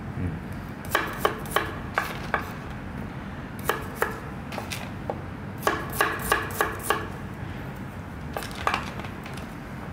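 Kitchen knife chopping on a cutting board: short runs of crisp strikes, about three a second, broken by brief pauses.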